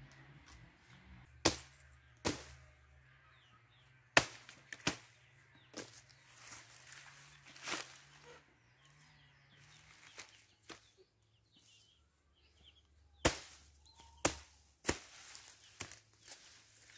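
A large knife chopping through banana leaves and stalks on the ground: a series of sharp chops, one group in the first few seconds and another after a pause of several seconds.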